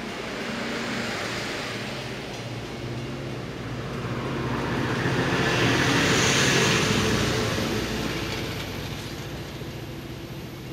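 MBTA commuter train passing close by: coach wheels rumble and hiss on the rails, then the diesel locomotive at the rear goes by about six seconds in, the loudest point, and the sound fades as it pulls away.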